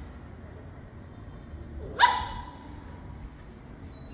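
A small shaggy dog barks at a cat once, sharply, about two seconds in.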